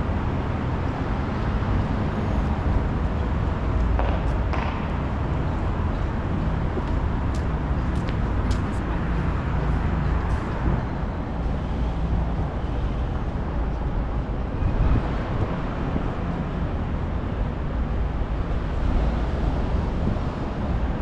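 City street traffic: a steady rumble of passing vehicles, with a few short clicks between about four and ten seconds in.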